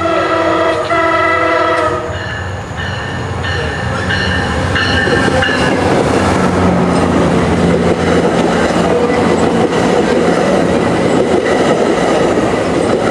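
A MARC MP36PH-3C diesel-electric locomotive (3,600 hp) sounds its multi-tone horn in two blasts, then a bell rings in short repeating strokes. From about six seconds in, the locomotive passes close by at speed with its diesel engine humming, followed by the loud rush of bilevel coaches' wheels on the rails.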